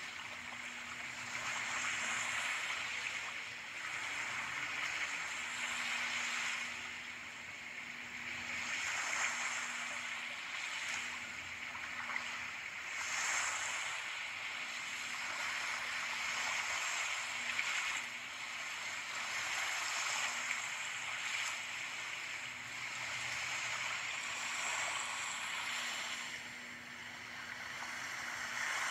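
Ocean waves washing in and out, the surf rising and falling every few seconds, over a faint steady hum.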